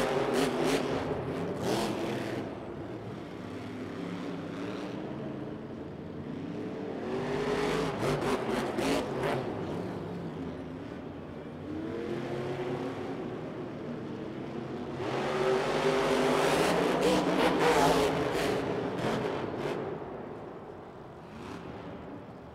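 Monster truck supercharged V8 engines revving hard and racing, the pitch climbing and falling in three loud swells as the trucks accelerate and jump, fading near the end.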